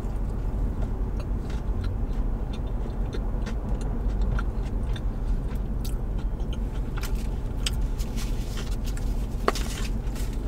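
Biting into a burger and chewing it, over a steady low hum inside a car. Near the end a paper bag crinkles.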